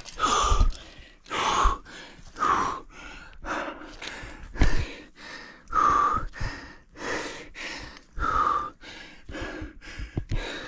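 Climber breathing hard from the effort of crack climbing: loud, breathy exhalations about once a second. A dull low bump on the microphone about four and a half seconds in.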